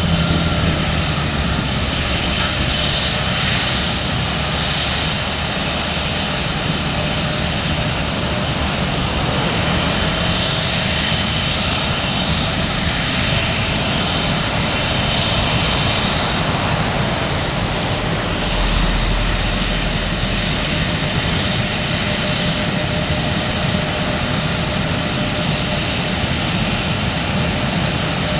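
Panavia Tornado GR4 jet engines running at taxi power: a steady jet rumble with a continuous high-pitched whine.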